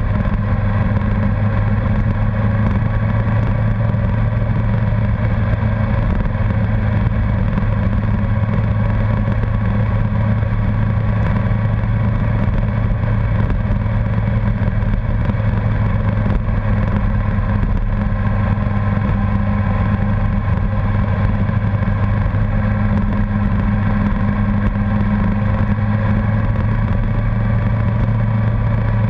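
Honda CBR1100XX Blackbird's inline-four engine running at a steady cruising speed, one unchanging drone with road and air noise.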